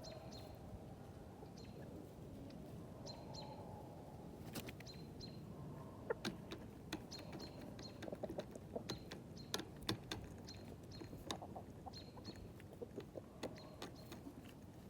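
Chickens pecking: beaks tapping in irregular sharp clicks, thickest in the middle and latter part, over soft low calls and repeated short high chirps.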